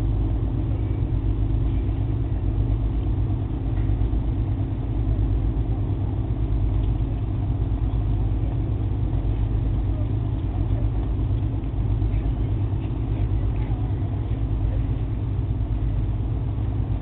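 Diesel engine of a moored river cruise ship idling, a steady low hum.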